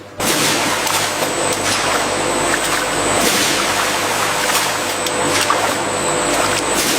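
Steady industrial machine noise from a potato processing line, starting abruptly, with a few faint clicks.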